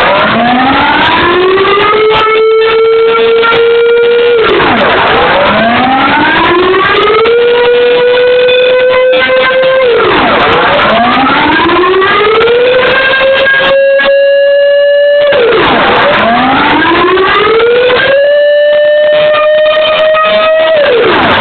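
Pole-mounted air-raid warning siren sounding the rising and falling alarm tone of its monthly test. In each cycle the pitch climbs for about two seconds, holds while creeping slowly higher, then drops quickly, repeating about every five and a half seconds, about four times.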